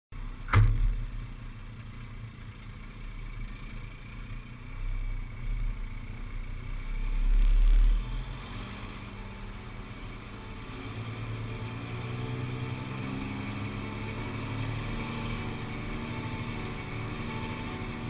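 Semi truck engine running as it tows a grain hopper trailer, heard from a camera mounted on the truck's side. A sharp knock comes just after the start, and a low rumble swells to a peak about seven to eight seconds in.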